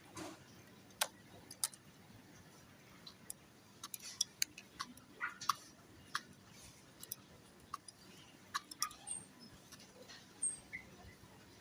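Irregular sharp ticks and clicks, a few each second, with two faint short high chirps near the end.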